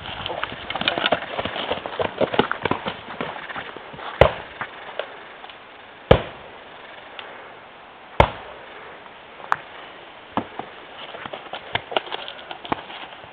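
Feet scuffling and crunching through leaf litter and twigs on a forest floor, then three loud sharp knocks about two seconds apart, followed by a few lighter cracks.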